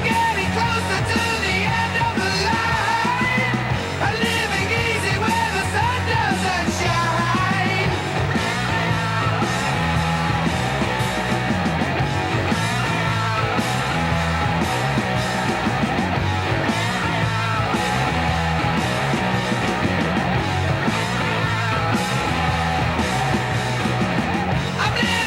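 Punk rock soundtrack music: a band with a driving beat and a shouted singing voice in the first several seconds.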